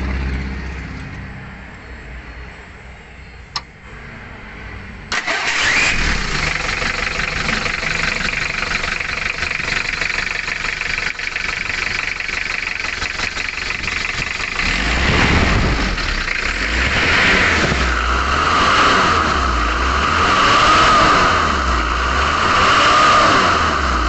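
Mitsubishi L300 four-cylinder diesel engine running after a rocker arm shaft replacement, valve adjustment and nozzle resetting, which the mechanic calls very crisp and smooth. It gets suddenly louder about five seconds in. From about fifteen seconds in it is revved up and down several times, roughly every two seconds.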